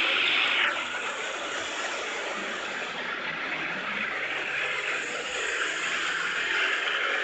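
Police-escorted convoy of cars and vans passing on a road: a steady wash of engine and tyre noise. Under a second in, a high siren wail drops in pitch and cuts off.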